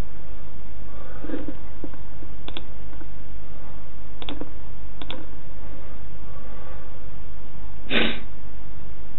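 A steady low hum with a few short faint clicks, and a brief louder rush of noise about eight seconds in.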